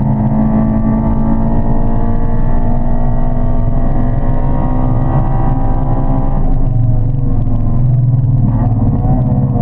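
Honda Civic EP3 Type R's four-cylinder VTEC engine under hard acceleration on track, its pitch climbing steadily for about six seconds, then dropping away and climbing again near the end.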